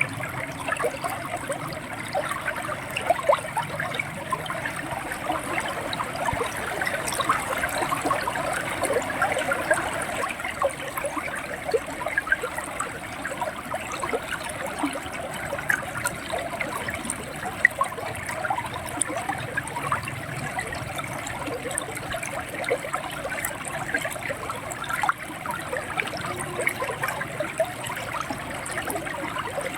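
River water flowing and gurgling: a steady rush full of small, quick splashes and bubbles.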